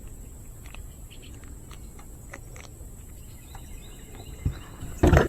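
Quiet outdoor ambience: a steady low noise bed with faint scattered chirps and ticks, then a loud brief noisy burst near the end.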